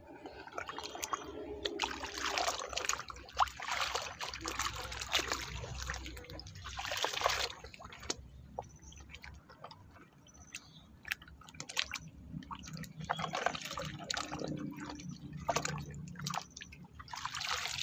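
Water sloshing and splashing in uneven surges as a hand swishes a plastic toy race car back and forth in a tub of muddy water, with scattered small clicks and drips.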